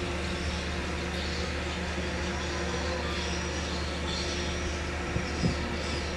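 Steady low hum of a stationary diesel train idling at a platform, its engine tones held level without rising or falling, with a couple of faint knocks about five seconds in.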